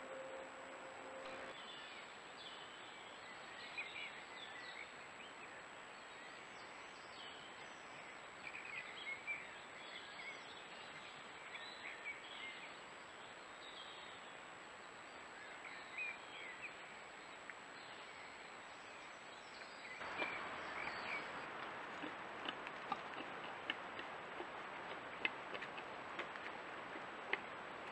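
Faint hiss with scattered small bird chirps in the background. After a cut about two-thirds of the way through, the hiss gets louder and sharp crackles and snaps come in, as wild boars move and root through dry fallen leaves.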